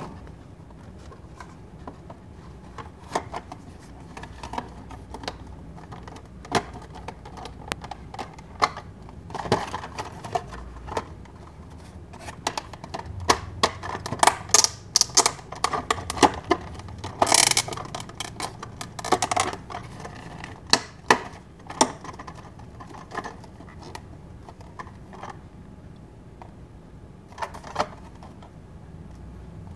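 A hard clear plastic Hot Wheels protector case being handled as a carded car is fitted into it: scattered plastic clicks and taps with some crinkling, busiest in the middle and sparse near the end.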